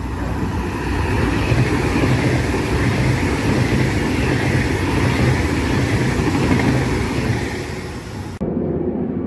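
An ES express passenger train running through the station at speed, a steady rush of wheel and rail noise with a low rumble that eases slightly near the end. It cuts off suddenly about eight seconds in, replaced by a quieter, duller rumble.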